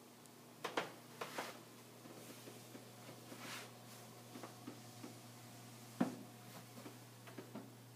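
Scattered light knocks and clicks over a steady low hum: two pairs of knocks about a second in, a sharper single knock about six seconds in, and fainter ticks between.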